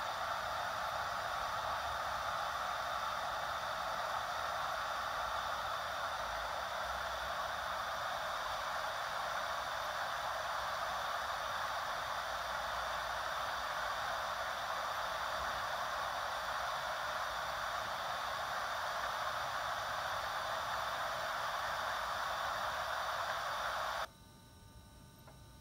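Steady rushing of stream water over rocks, heard through a camcorder's playback speaker. It cuts off abruptly near the end.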